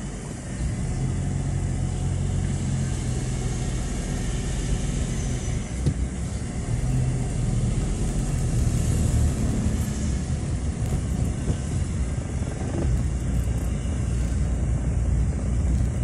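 Car engine and tyre noise heard from inside the cabin while driving slowly along a town street: a steady low hum and rumble.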